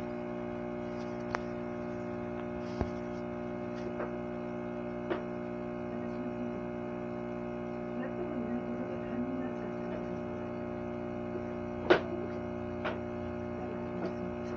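Steady electric hum from aquarium equipment, with a few sharp clicks scattered through, the loudest about twelve seconds in.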